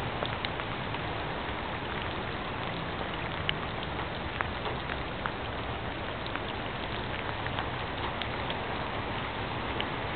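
Steady rain falling, an even hiss with scattered individual drops ticking sharply.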